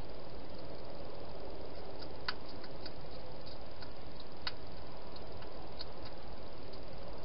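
A hedgehog chewing food at a bowl: scattered faint clicks, with two sharper ones about two and four and a half seconds in, over a steady hiss.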